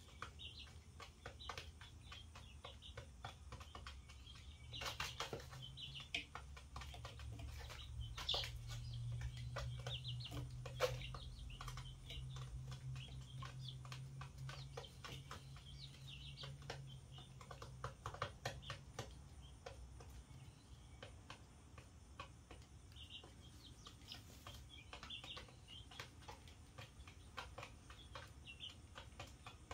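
Young chicks peeping softly, with frequent small clicks and taps from pecking and scratching. A low hum comes in about four seconds in and fades out about two-thirds of the way through.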